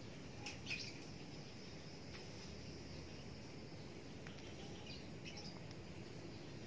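Faint dry rustles and scratches of rice husks as hands pack them into a plant pot around an aglaonema being repotted, a few short scratchy bursts over a quiet steady outdoor background.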